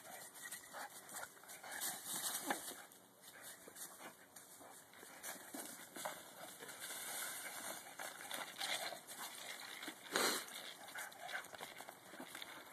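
Dogs playing and trotting over a carpet of dry fallen leaves: a faint, crackly rustle and crunch of leaves under their paws, with a louder burst of crunching about ten seconds in.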